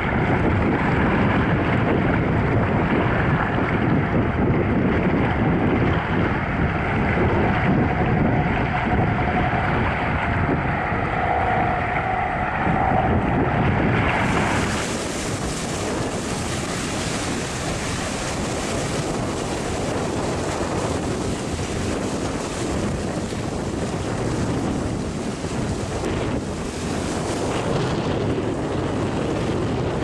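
Sea water splashing against shore rocks with wind on the microphone, a steady rushing noise. About halfway through it changes abruptly to a brighter, hissier rush of wind and water.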